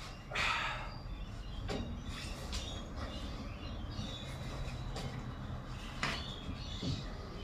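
Scattered rubbing, scraping and light knocks of hands fitting a serpentine belt over the engine's pulleys, the loudest a short scrape about half a second in, over a faint low steady hum.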